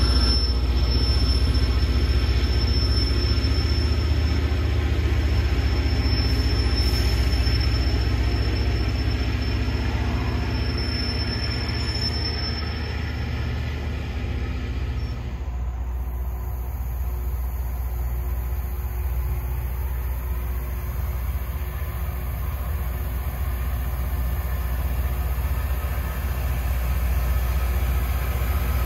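Loram rail grinding train running on the rails: a steady low engine drone under a hiss of higher noise. The higher hiss and a thin high tone drop away about halfway through, leaving mostly the drone.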